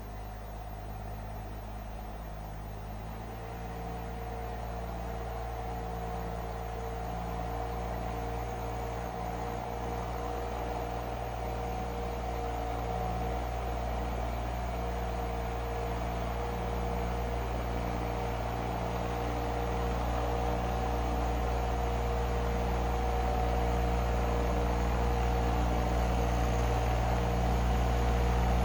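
Mini excavator engine running steadily under way, its note changing about three seconds in, then holding steady as it grows slowly louder.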